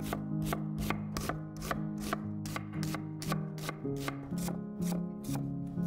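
Chef's knife slicing an onion on a wooden cutting board: an even run of sharp knife strikes on the board, about two and a half a second, with background music underneath.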